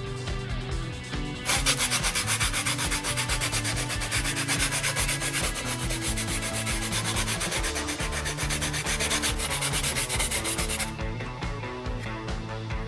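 Sanding of a repaired car plastic part: a fast, even scratching that starts about a second and a half in and stops shortly before the end, over background music.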